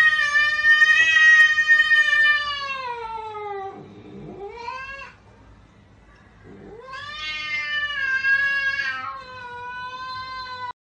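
Cat yowling: a long drawn-out call that sinks in pitch at its end, then a short call, a pause, and a second long call of about four seconds that cuts off suddenly near the end.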